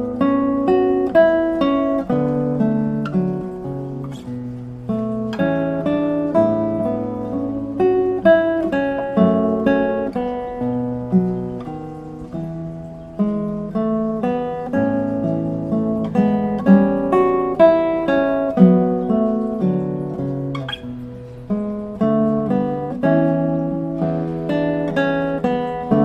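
Acoustic guitar music: plucked chords over a low bass line, each note ringing and fading.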